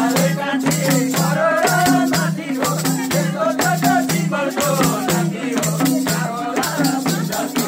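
Madal hand drum played in a quick, repeating rhythm, with hand claps keeping time and people singing a Nepali folk song along with it.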